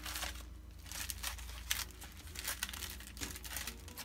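Paper and plastic packaging crinkling and rustling in short, irregular crackles as a mailer envelope is handled and sticker packs in clear plastic sleeves are pulled out.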